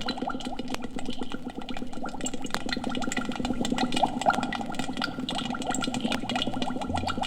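Thick liquid bubbling continuously, with a dense stream of small bubbles rising and popping in quick succession.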